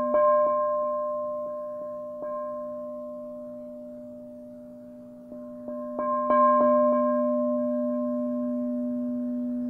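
Quartz crystal singing bowls struck with a mallet, several pitches ringing together in a long sustained hum. A few strikes near the start and another cluster about six seconds in, each making the ring swell, then slowly fade.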